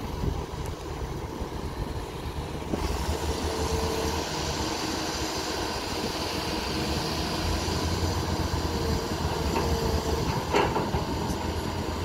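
Heavy diesel earthmoving machinery running steadily: the engines of the bulldozer and excavator at a recovery site. A brighter hiss joins about three seconds in, and there is a short knock near the end.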